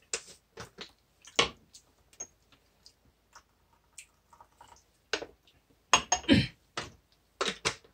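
Irregular small clicks and taps at a moderate level, sparse at first and coming more thickly in the last three seconds.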